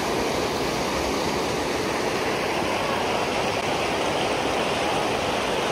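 River water pouring over a low concrete weir and churning into white water below, a steady rushing sound.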